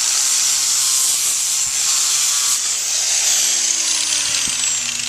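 Electric grinder with a sandpaper flap disc sanding down a horse's hoof wall: a steady, loud rasping hiss, with a faint high motor whine that slowly drops in pitch.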